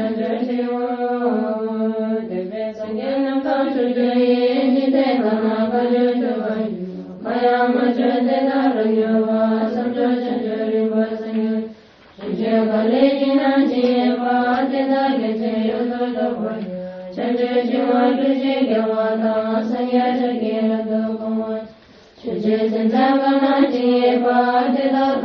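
Buddhist mantra chanting, sung in long held phrases that break off briefly about every five seconds.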